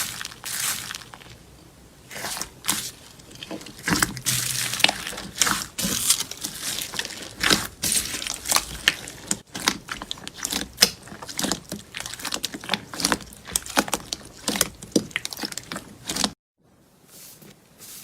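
Slime being squeezed and pressed by hand, giving a dense run of small crackling pops and squelches. The sound cuts off suddenly about sixteen seconds in, then softer handling sounds resume.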